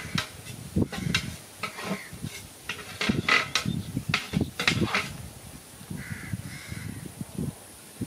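A kitchen knife cutting through a dressed quail on a wooden stump block: a run of irregular knocks of the blade against the wood, thickest about three to five seconds in.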